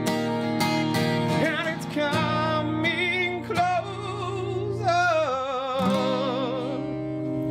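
Acoustic guitar strummed steadily, with a man singing long wavering notes over it from about a second and a half in until about six seconds in.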